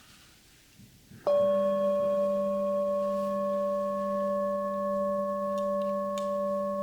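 Tibetan singing bowl struck once about a second in, then ringing on steadily with a low hum and clear higher overtones, sounded to close the meditation.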